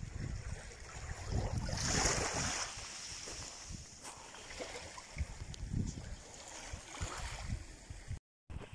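Small waves washing on the shore with wind buffeting the microphone, with a louder hiss of surf about two seconds in. The sound drops out for a moment near the end.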